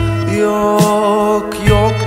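Pop song playing, a passage without lyrics: a held melody line over bass, with a few drum hits.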